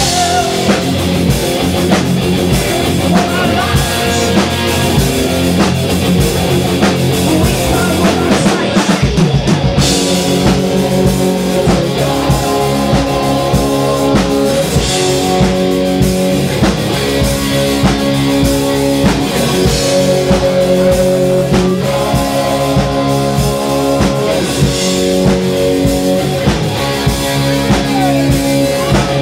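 Live heavy metal band playing loudly: distorted electric guitar over a drum kit. About ten seconds in the part changes to steadier held notes.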